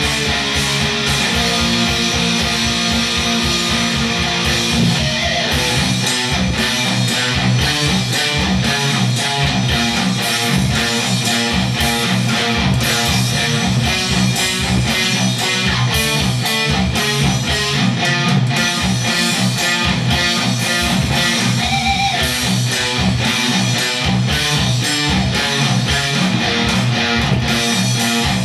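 Heavily distorted electric guitar playing a fast death metal riff of rapid, evenly picked notes that never stops.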